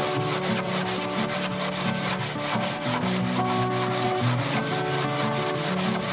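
Sandpaper wrapped around a small length of pipe rasping in fast, even strokes along a rounded fiberglass edge, over background music with held notes.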